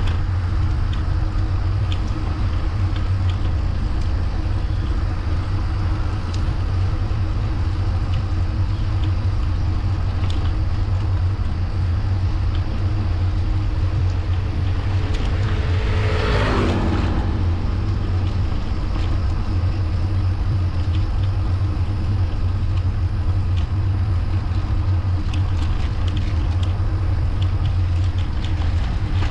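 Steady low wind rumble on the microphone of a moving bicycle. A motor vehicle passes about halfway through, swelling and then dropping in pitch as it goes by.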